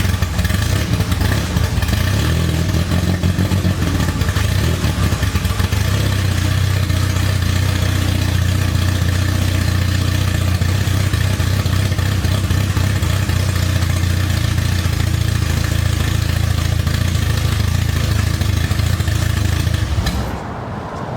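Honda Integra's swapped B20 VTEC four-cylinder engine idling, a steady loud running with its intake not hooked up. The idle is not right, which the owner puts down to several vacuum leaks. The sound cuts off near the end.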